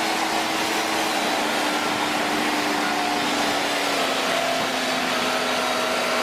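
Diesel engine of a large Cat 6015B hydraulic mining excavator running steadily as the machine travels on its tracks, a dense whooshing drone with a hum that slowly sinks in pitch.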